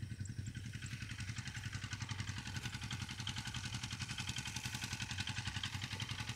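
A small engine running steadily at idle: a low hum with a fast, even pulsing that does not change.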